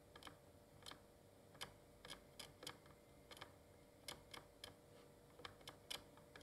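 Faint, irregular small clicks and ticks, about two or three a second, from a soldering iron tip working along the fine pins of a 3dfx chip, reflowing their solder. A faint steady hum lies underneath.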